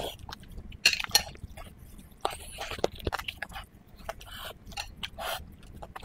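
Close-miked eating sounds: wet chewing and lip smacking with sharp mouth clicks, in short irregular bursts, as soft food from a spicy red-oil broth is eaten.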